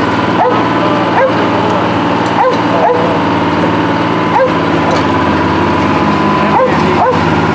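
Bucyrus-Erie 22B cable shovel's engine running steadily under load while its clamshell bucket is closed on mud and hoisted. Short, sharp chirping squeaks cut through it irregularly, every second or two.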